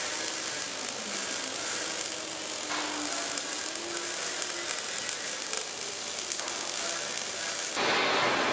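MIG welding arc crackling steadily as a bead is run around a 3-inch steel pipe joint, fed with 1 mm solid wire under argon-mix shielding gas. A short, louder rush of noise comes near the end.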